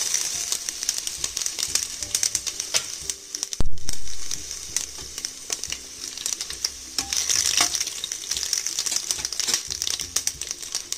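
Whole spices crackling and sizzling in hot oil in a pressure cooker, stirred with a spoon. A single loud knock about three and a half seconds in.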